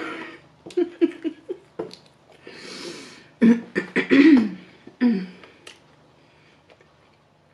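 A woman laughing in short choppy bursts, with a breathy gasp in between, trailing off after about five seconds.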